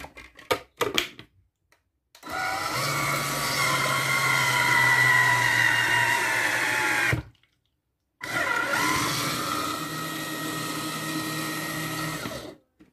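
Electric hands-free citrus juicer's motor spinning its reamer against an orange half: it runs for about five seconds, stops for about a second, then runs again for about four seconds, its pitch drifting slightly down during each run. A few short clicks come just before, as the orange is set in place and the lid is shut.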